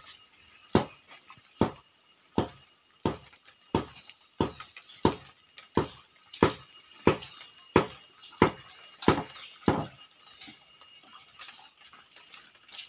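A steady series of sharp knocks, about one every 0.7 seconds, that stops about ten seconds in, with only a few faint knocks after.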